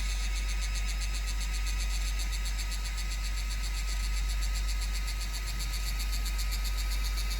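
Dagoma Magis 3D printer making an extremely loud, steady noise: a deep hum with a high whine over it and a fast, even pulsing buzz higher still.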